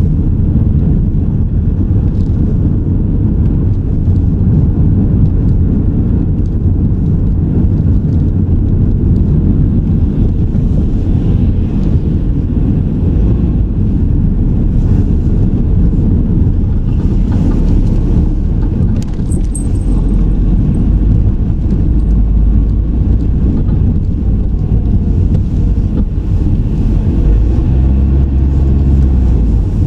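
Car driving, recorded on board: a steady low road and engine rumble, with a stronger low engine hum near the end.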